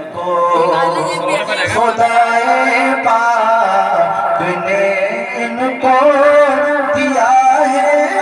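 A man's solo voice singing a manqabat, an Urdu devotional praise poem, in long held notes that bend and slide in pitch.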